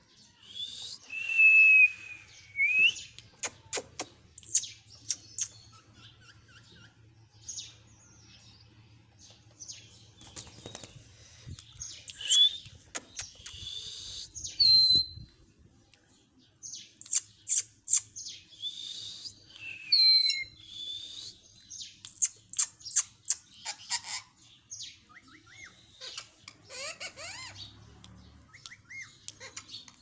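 Rose-ringed parakeet calling: loud shrill screeches and whistles that glide in pitch, among many sharp clicks and chirps, with a quick run of short rising whistles near the end.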